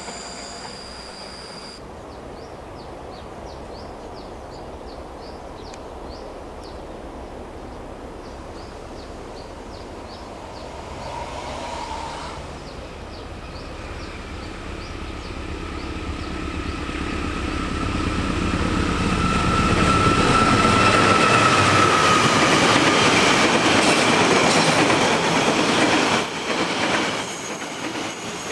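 Diesel-hauled passenger train approaching and passing at trackside, growing steadily louder from about halfway in and staying loud near the end, with wheels clattering over the rail joints and a high ringing tone as it nears.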